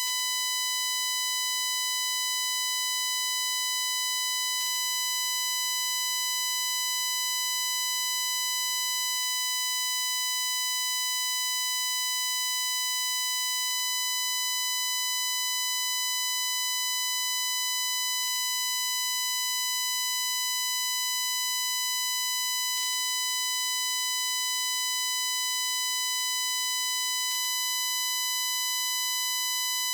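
Steady, high-pitched, shrill digital buzz: a recording glitch from a Shure MV88+ phone microphone, a constant tone near 1 kHz with a ladder of overtones. A faint tick comes about every four and a half seconds.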